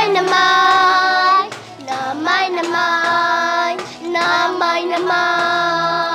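A young girl singing an unaccompanied chant in long held notes, each about a second or more, sliding up into some of them, with a few sharp knocks in between.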